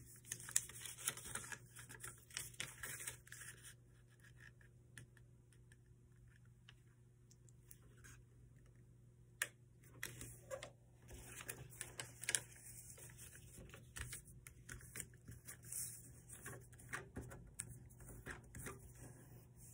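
Faint rustling, scraping and crinkling of a sheet of paper being folded and creased by hand, with scattered small clicks and a quiet pause in the middle.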